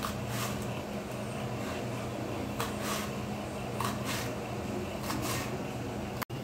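Kitchen knife slicing through spring onion bulbs onto a wooden chopping board: irregular short cuts, about nine of them, over a steady low hum.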